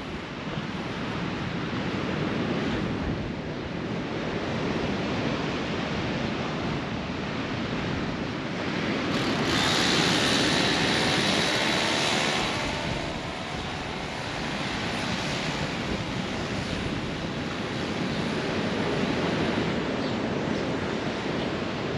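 Wind rushing across the microphone, a steady roar that swells for a few seconds around the middle.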